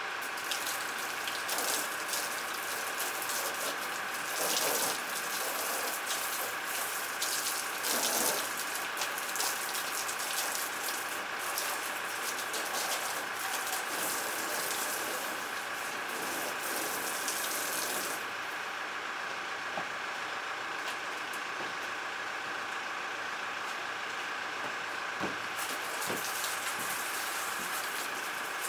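Water from a hose spray nozzle, fed by a submersible pump from a 50-litre poly tank, spraying and splashing onto the plastic hull of an upturned boat. The spray hiss is stronger for the first two-thirds and softens about eighteen seconds in, over a steady faint hum.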